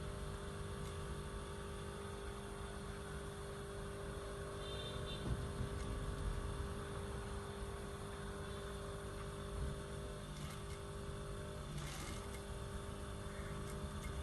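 Industrial sewing machine running amid a steady machine hum, with a few light clicks.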